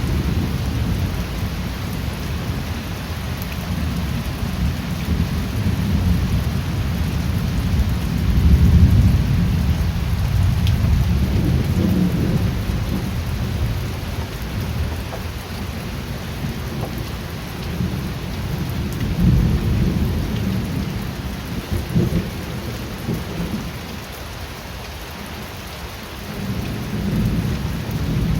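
Steady rain falling in an even hiss, with low rolling thunder rumbling underneath that swells and fades several times, loudest about eight or nine seconds in.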